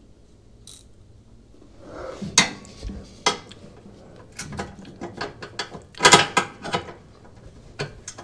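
Hand ratchet wrench clicking in short irregular spurts as a bolt is tightened on the washer's tub mounting, with a few sharper metal knocks; it starts about two seconds in.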